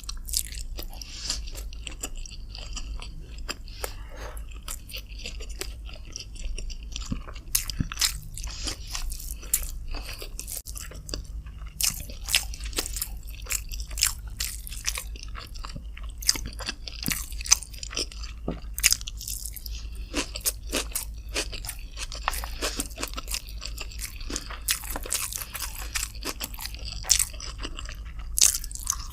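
Close-miked chewing and biting of chicken with rice: many short crunchy clicks and crackles.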